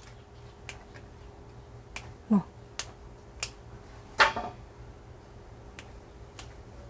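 Crisp snaps of fern shoots being broken by hand, about one a second at an uneven pace.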